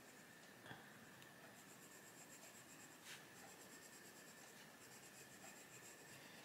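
Faint, soft scratching of a Faber-Castell Polychromos coloured pencil shading on paper, with two light ticks of the pencil.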